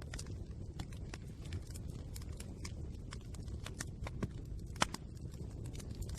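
Fire crackling: irregular sharp pops and snaps over a steady low rumble, with one louder snap about five seconds in.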